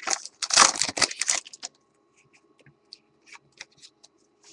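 Wrapper of a football trading-card pack being opened, with a loud rustle in the first second and a half. Then come faint scattered clicks as the cards are handled.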